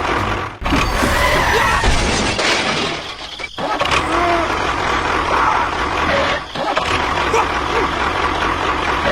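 Loud, noisy machine sound of a small vehicle working, broken by short gaps about half a second, three and a half and six and a half seconds in.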